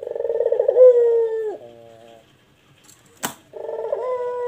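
Barbary dove (puter) cooing in long, deep calls: each opens with a quick rolling burr and then holds one steady tone that sags in pitch as it ends. A sharp click about three seconds in, then a second long coo begins.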